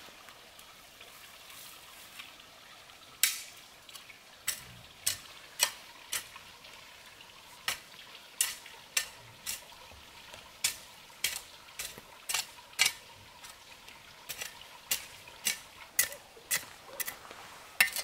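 Sharp taps or knocks, irregular at roughly one to two a second, starting about three seconds in over a faint steady hiss.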